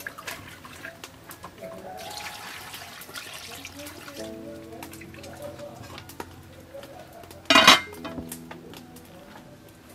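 Water poured from a plastic dipper into a steel cooking pot for about two seconds, then a short, loud metallic clank about two-thirds of the way in as the steel lid is set on the pot. Background music plays throughout.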